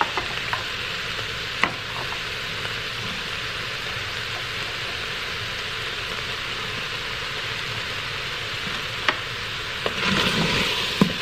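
Chicken, celery and carrots sizzling steadily in the stainless inner pot of an electric pressure cooker set to sauté, with a few sharp clicks. About ten seconds in a wooden spoon starts stirring and the sizzle grows louder.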